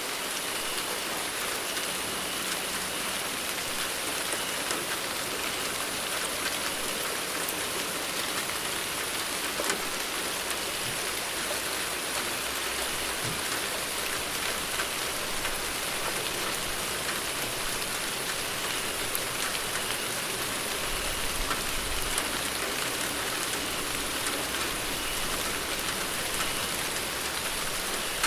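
Steady rainfall without thunder: an even hiss of rain with scattered louder drops ticking on a surface.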